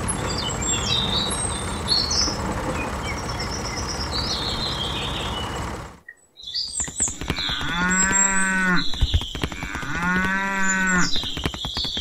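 Steady noise with birds chirping that cuts off about halfway; then a cow moos twice, each moo about a second long, with birds chirping behind it.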